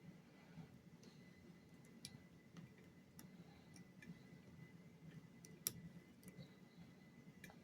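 Faint, irregular clicks of a lock pick working the pins inside a lock. The sharpest click comes a little before six seconds in.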